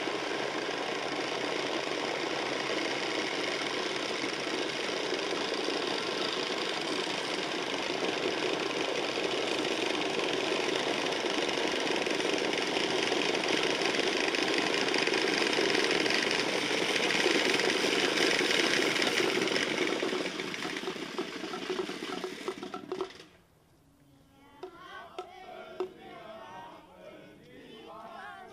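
A crowd of wooden Easter rattles (Osterklappern) clattering together in a dense, continuous rattle, the Holy Week custom of rattling in place of the silenced church bells. The rattling stops abruptly about 23 seconds in, leaving quieter voices.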